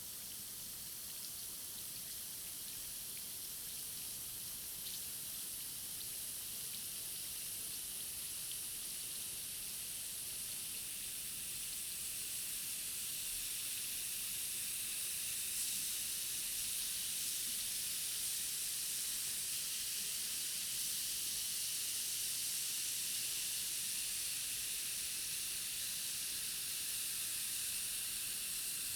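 Two effervescent tablets fizzing in a glass of water: a steady high hiss of bursting bubbles that grows gradually louder.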